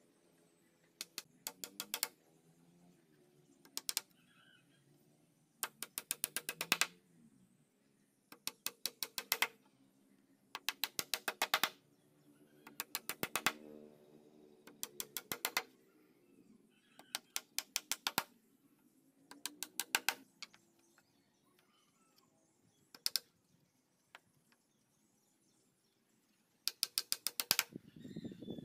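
Hammer tapping into the wooden cabinet frame in short bursts of quick, light strikes, several strikes to a burst, with pauses between bursts.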